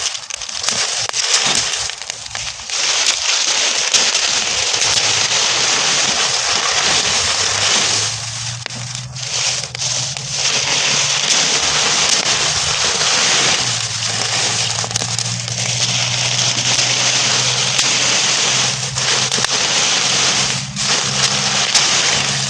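Burning straw crackling densely: a continuous hiss of rapid, fine pops. A low steady hum runs underneath from about four seconds in.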